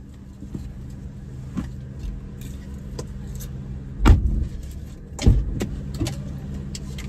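Car door slammed shut with a loud thud about four seconds in, followed by a second door thud a second later, over the steady low hum of the idling vehicle.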